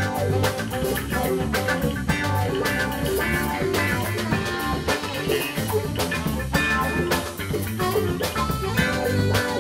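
Live rock band playing at full volume: electric guitars over a steady drum-kit beat.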